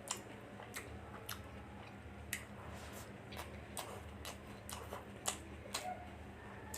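Eating chicken fried rice: chewing with about a dozen irregular, sharp mouth clicks and smacks, one louder than the rest near the end.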